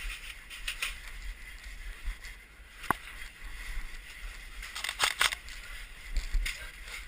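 A sharp single click about three seconds in and a short burst of crackling clicks around five seconds, over faint rustling and low rumble.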